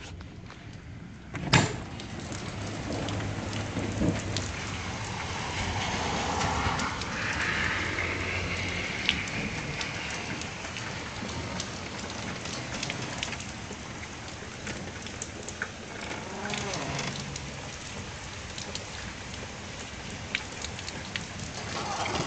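Steady rain falling, with one sharp bang about a second and a half in.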